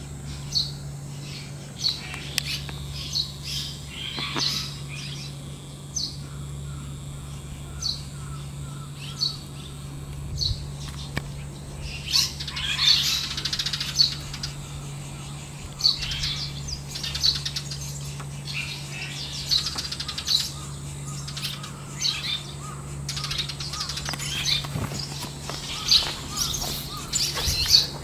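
Red-rumped swallows chirping: short, high calls about once a second at first, then busier twittering through the second half. A steady low hum runs underneath.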